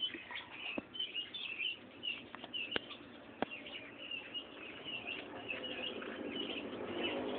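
Small birds chirping continuously, many short quick chirps, with a few sharp clicks in the first half. A motor engine hum builds up near the end.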